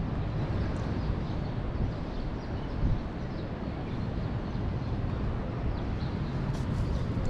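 Steady, low rumbling outdoor background noise with no clear single event.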